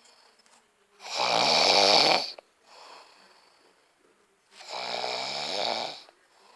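A person snoring heavily: two long, rasping snores a few seconds apart, the first louder than the second, with a faint breath between them.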